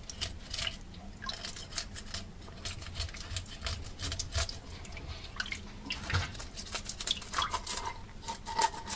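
A fish-scaling knife scraping scales off a whole whitefish in many quick, irregular strokes, with water dripping and splashing in a steel sink.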